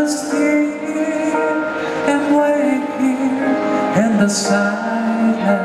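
A man singing a slow song into a microphone over instrumental accompaniment, holding long notes, with sharp 's' sounds twice.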